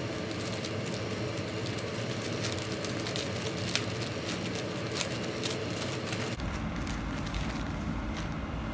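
Plastic poly mailer bag crinkling and rustling as it is handled and opened by hand, in many quick crackles. A low background hum gets stronger about six seconds in.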